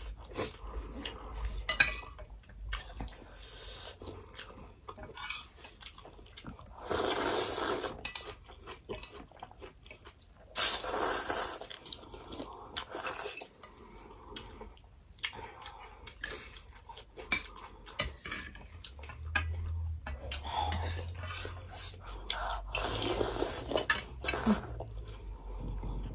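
Spoons and forks clinking against ceramic soup bowls, with close chewing and several long slurps as thukpa noodles are sucked up from the spoon.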